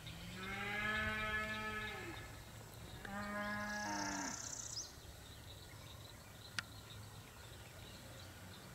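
Cow mooing twice, two long, even-pitched moos, the first about two seconds long and the second a little shorter starting about three seconds in. A single sharp click follows a couple of seconds later.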